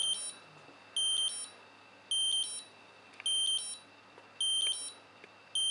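Alarm clock beeping: high-pitched bursts of several quick beeps, repeating a little more than once a second.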